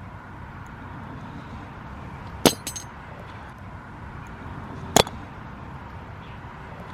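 Two sharp clicks or clinks about two and a half seconds apart, the first followed by a couple of smaller ticks, over a steady low rumble.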